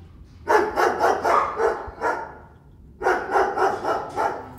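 Two quick runs of short, sharp animal calls, each run six or seven calls in about a second and a half. The second run starts about three seconds in.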